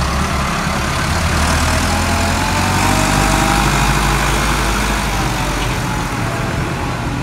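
Farm tractor's diesel engine running steadily as it tows a heavily loaded low-bed trailer.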